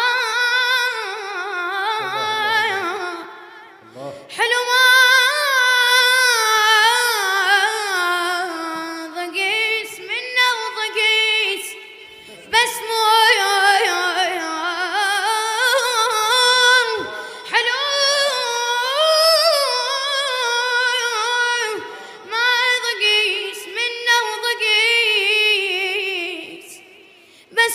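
A boy's high solo voice singing an Iraqi abudhiya without accompaniment, in long melismatic phrases with a wavering, ornamented pitch. The phrases break for short breaths about 4, 12 and 22 seconds in.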